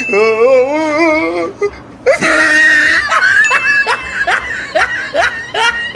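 A person laughing: first a long, wavering laugh, then a run of short laughs that each fall in pitch.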